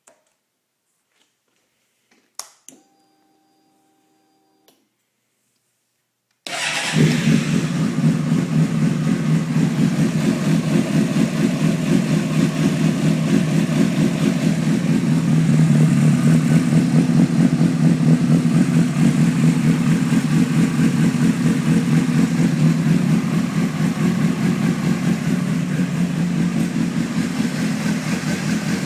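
A click and a brief hum about two seconds in. Then, about six seconds in, a 2003 Honda CBR600RR's inline-four engine starts and settles into a steady idle with a fast pulsing beat: the rough idle the owner is trying to trace.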